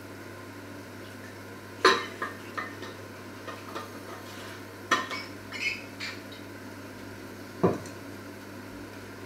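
Metal pots, pans and utensils clinking and clattering in a run of about ten sharp knocks, the loudest about two seconds in, about five seconds in and near the end, over a steady low hum.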